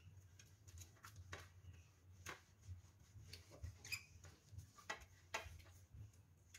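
Faint, light scrapes of a silicone spatula spreading ghee over a steel tray, greasing it, in several short irregular strokes over a low steady hum.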